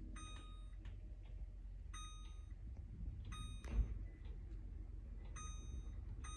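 Microwave oven keypad beeping as buttons are pressed: short, high electronic beeps at irregular intervals, about five in all, with a soft thump a little before the fourth.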